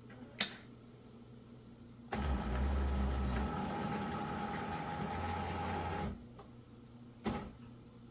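Terra Kaffe TK-02 super-automatic espresso machine running its initial priming cycle: a click, then a pump-like hum with a steady tone that runs for about four seconds and stops abruptly, then another click.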